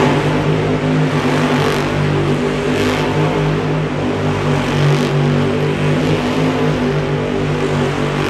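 Monster truck's supercharged V8 engine held at high revs, its pitch fairly steady, as the truck spins donuts.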